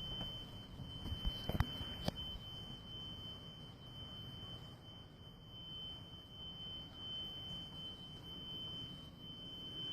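Faint, uneven low rumble of the unexplained noise from the sky, with a constant high-pitched whine throughout and a few clicks between one and two seconds in.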